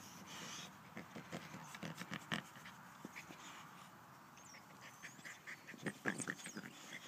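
Boxer dog sniffing and snuffling with its nose down in the grass: a faint, irregular run of short sniffs, with louder ones about two seconds in and again around six seconds in.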